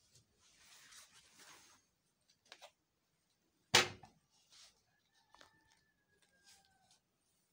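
Gloved hands handling a plastic bottle on a tabletop. There is faint rustling, a small click, then one sharp knock a little under four seconds in, followed by a few faint thin squeaks.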